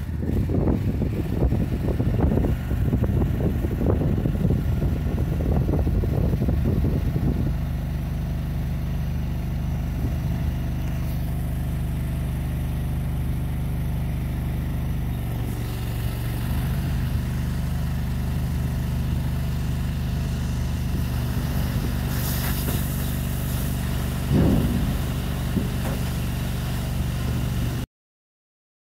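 A vehicle engine idling steadily, a low even hum, with uneven rougher noise over the first seven seconds or so. It cuts off suddenly near the end.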